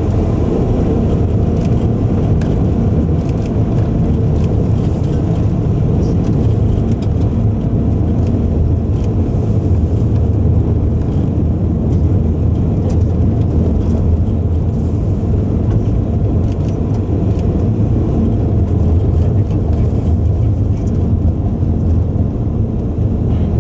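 Steady road noise of a car driving at speed, heard from inside the cabin: a constant low rumble of engine and tyres.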